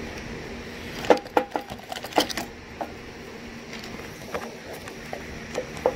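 Scattered sharp clicks and knocks of parts being worked loose from a small lawnmower engine, bunched about a second in and again near the end, over a faint steady hum.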